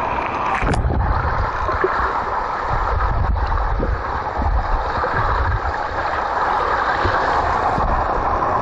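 Pool water heard from under the surface through a waterproof camera: a muffled, steady low rumble and churning from swimmers kicking nearby. The sound turns muffled less than a second in, as the camera goes under.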